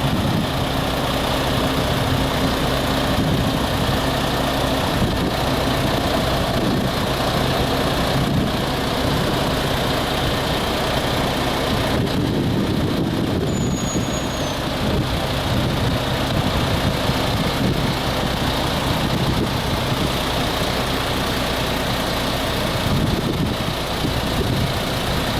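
MAN TGS 32.400 8x4 concrete mixer truck's diesel engine running steadily at idle.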